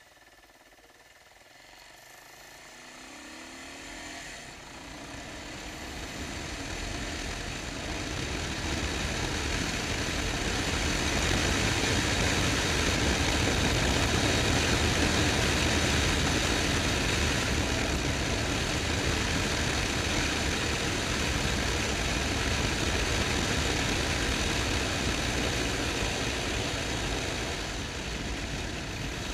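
Motorcycle under way: a steady rush of wind and road noise with the engine running underneath, growing much louder over the first ten seconds as the bike picks up speed, then holding steady and easing slightly near the end.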